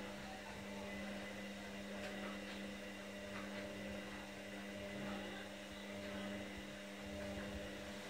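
Candy GrandO front-loading washing machine running a wash, its drum motor humming steadily with a few constant tones while the drum tumbles a load of towels.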